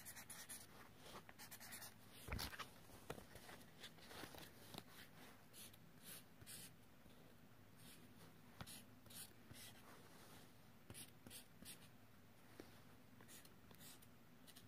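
Felt-tip marker drawing on a paper card: a faint string of short, irregular strokes as shapes are drawn, with one light knock about two seconds in.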